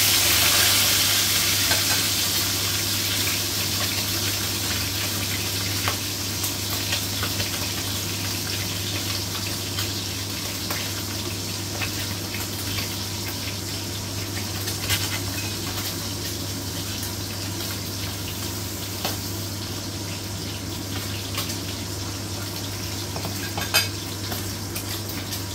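Boiled pork loin slices sizzling in hot oil in a frying pan. The sizzle is loudest as a slice is laid in at the start, then settles to a steady hiss with scattered small pops of spattering oil. A steady low hum runs underneath, and there is one sharp tap near the end.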